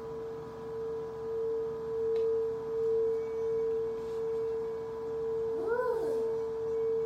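Singing bowl sounding one long sustained tone that pulses, swelling and fading a little more than once a second. About six seconds in, a short voice sound rises and falls over it.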